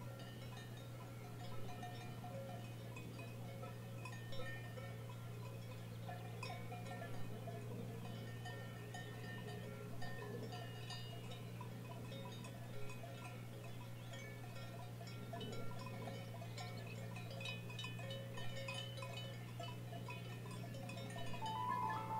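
Cowbells clanking faintly and irregularly, with a steady low hum underneath. Near the end, chime-like music tones come in.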